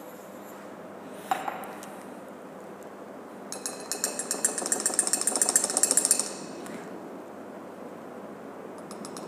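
Laboratory glassware clinking: a single sharp tap about a second in, then a rapid run of glass-on-glass clinks with a ringing tone for about three seconds in the middle.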